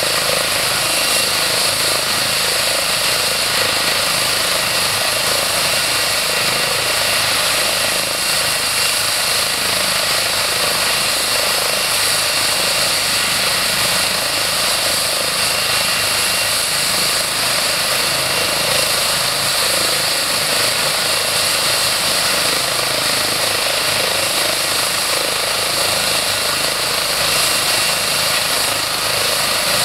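Eurocopter EC135 twin-engine helicopter running on the ground with its rotors turning: a steady, loud turbine and rotor noise with a high whine.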